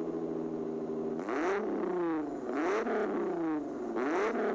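Car engine idling, then revved three times, its pitch climbing and falling back with each rev.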